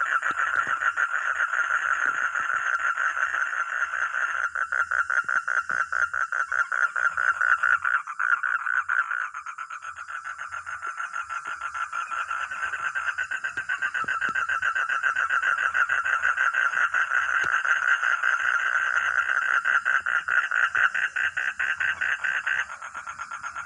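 Frogs calling in a continuous chorus of rapid, pulsed croaks. The loudest callers drop back about nine seconds in, pick up again, and fall off once more just before the end.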